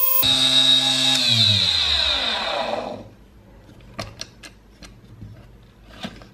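Mini lathe's electric motor and drill chuck running with a steady high whine, then switched off and spinning down, the pitch falling for about two seconds until it stops. A few light clicks and taps follow as the work is handled.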